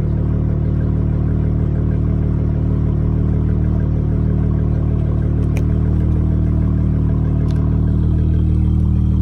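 Charger's engine idling steadily through Flowmaster Super 10 mufflers, a steady low exhaust note that grows slightly louder near the end.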